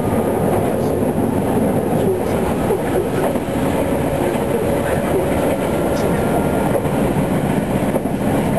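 Meitetsu 7000 series Panorama Car running along the line, a steady rumble of wheels on rail with a few light clicks, heard from the front observation seats.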